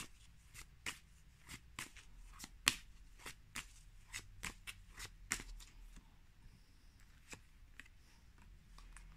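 A tarot deck being shuffled by hand: the cards tap and click against each other in quick, irregular strokes, thinning out over the last few seconds.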